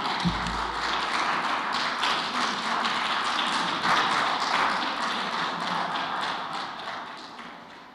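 Audience applauding, a dense steady clatter of many hands, with a low thump just after it begins; it fades out near the end.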